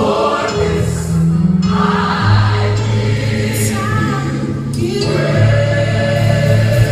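A gospel song sung by a small group of singers in harmony, with held notes over steady bass accompaniment.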